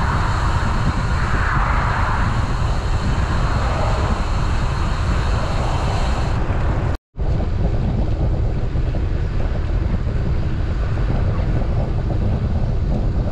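Wind buffeting the microphone of a camera on a moving road bike: a loud, steady low rumble. It drops out for a split second about seven seconds in, then carries on.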